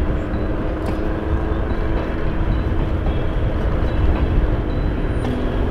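Steady engine and road noise of a vehicle under way, with a faint steady hum underneath that drops slightly in pitch near the end.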